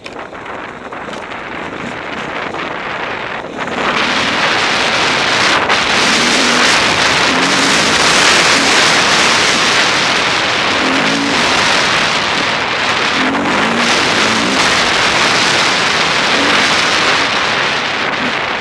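Enduro dirt bike ridden along a trail, heard through a helmet-mounted camera: wind rushing over the microphone covers most of the sound, with the engine coming through faintly in a few short revs. The rushing jumps louder about four seconds in and stays loud.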